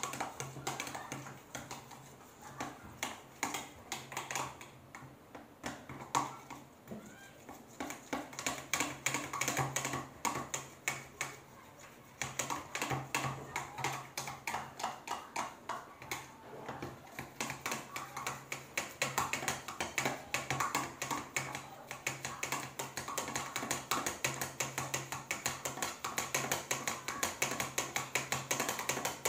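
Spoon stirring a sticky glue-based slime mixture in a bowl: a rapid, uneven run of clicks and taps that gets quicker and steadier in the second half.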